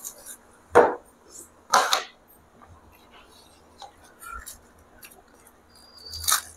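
Crisp pani puri shells cracking and crunching, in three loud sharp bursts about a second, two seconds and six seconds in, with softer crackles between.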